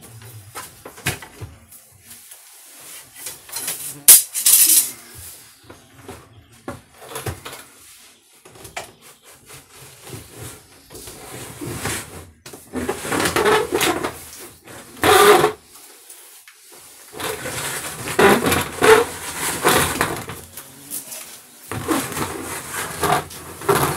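Plastic bucket held up against an Asian hornet nest under wooden roof boards, knocking and scraping against it in irregular bursts, with a few sharper knocks about four seconds in.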